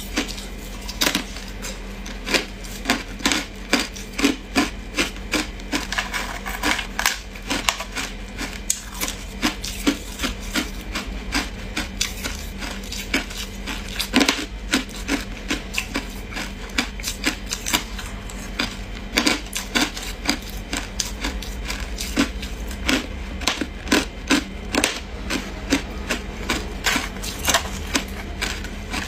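Close-up crunching of ice being bitten and chewed, sharp cracking crunches coming in irregular runs of several a second, over a steady low hum.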